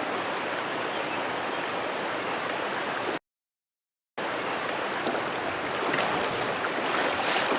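Creek water running steadily over riffles, an even rushing noise that cuts out completely for about a second roughly three seconds in.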